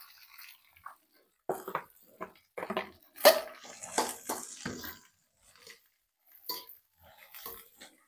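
Metal spatula scraping and knocking against a wok in irregular short strokes as cooked rice is stirred in to make fried rice.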